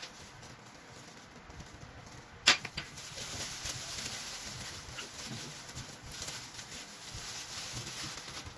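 A metal spoon clinks sharply onto a glass tabletop about two and a half seconds in, with a couple of smaller ticks after. Then plastic food-prep gloves crinkle and rustle steadily as hands rub calamansi juice into a raw whole chicken in a glass bowl.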